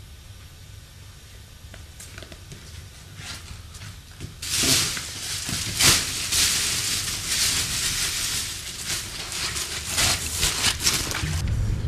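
Black plastic garbage bag rustling and crinkling, starting about four seconds in after a faint low hum, with a few louder crackles near its start.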